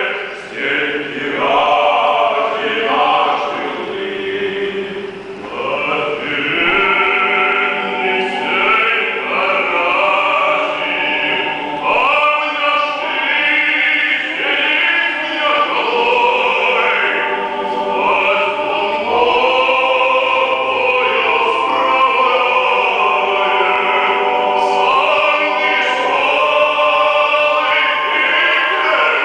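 A small group of men singing together in harmony, several voices holding and moving through sustained notes.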